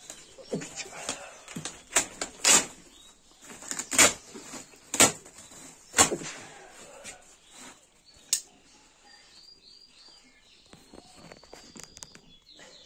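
White woven plastic feed sack rustling and crackling as it is handled and cut open with a knife, with several loud crinkles in the first six seconds and one more a little later. Near the end, faint high chirps, likely from chicks.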